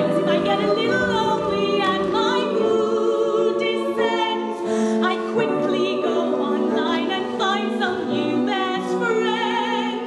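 Cast of a stage musical singing together in harmony, with long held notes sung with vibrato.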